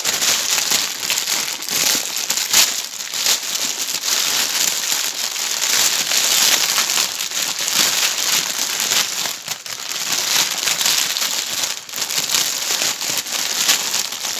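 Clear plastic packaging bags crinkling continuously as hands rummage through them, with a couple of short lulls.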